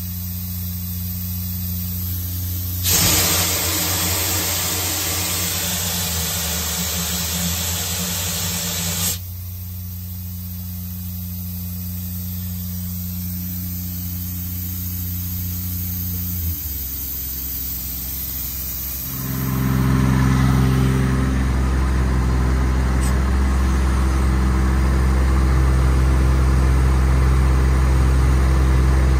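Kubota diesel engine of a Miller EnPak running steadily at about 3,600 rpm. About three seconds in, a loud hiss of compressed air lasts about six seconds. A little past halfway the engine note changes with a click, and from about two-thirds of the way it is louder.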